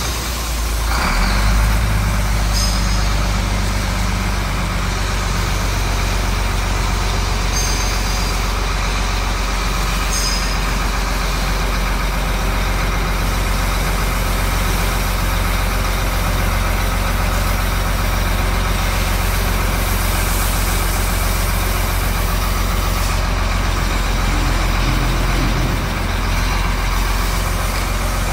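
Beiben 2638 heavy truck's diesel engine idling steadily, a low even hum.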